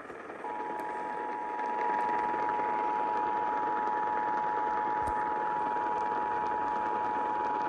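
Emergency Alert System two-tone attention signal, 853 and 960 Hz sounded together, starting about half a second in and holding steady. It comes over a radio broadcast with static hiss beneath it. The signal announces an emergency alert message.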